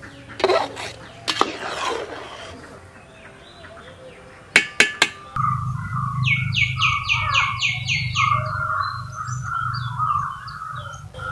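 A metal ladle scraping and stirring through payasam in a metal pot, with three sharp taps about four and a half seconds in. Then a bird gives a quick run of about eight high chirps over a steady low hum.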